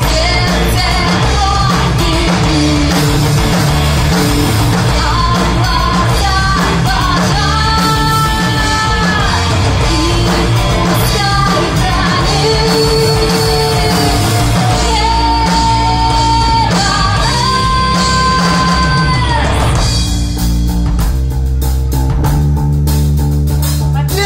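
Live rock band playing loudly: a woman singing long held notes over distorted electric guitars, bass and drums. For the last few seconds the singing drops out and the guitars and drums play on.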